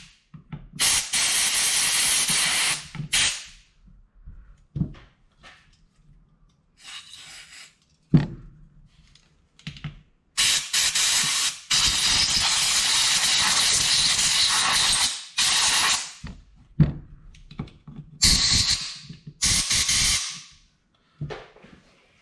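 Compressed-air blow gun hissing in bursts as it blows out the idle-circuit passages of a Mikuni BS38 carburettor body. There is a burst of about two seconds near the start, a long burst of five to six seconds midway, and a shorter one near the end, with small knocks of handling between.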